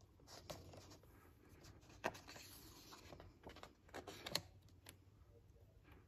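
Faint paper rustling and a few soft taps as a page of a large hardcover picture book is turned, the sharpest tap about two seconds in.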